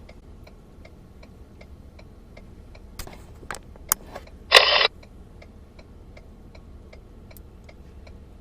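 A vehicle's turn-signal flasher clicking steadily, about two to three clicks a second. A few sharper knocks come around three to four seconds in, and a short, loud noisy burst about four and a half seconds in.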